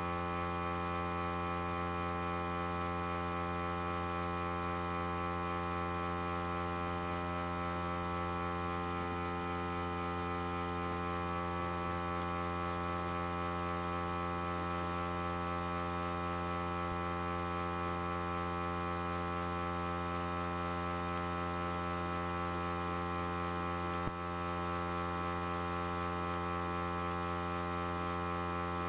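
A small makeup airbrush compressor running with a steady, even hum, driving a Dinair airbrush gun while foundation is sprayed onto the face.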